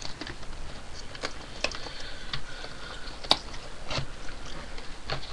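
Cardboard box being handled, its flaps folded in and out: irregular light clicks and taps, with about five sharper knocks, the sharpest a little past halfway.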